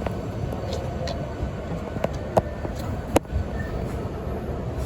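Hankyu Kyoto Line electric train running on the track: a steady rumble with several short, sharp clacks over the rails.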